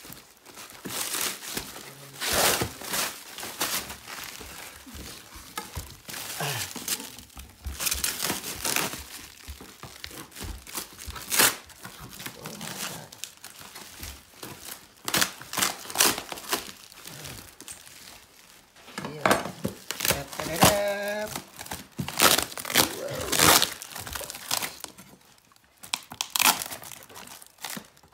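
Plastic packaging wrap being pulled off and handled, crinkling and crackling in irregular bursts with some tearing. About twenty seconds in there is a brief pitched sound with a wavering pitch.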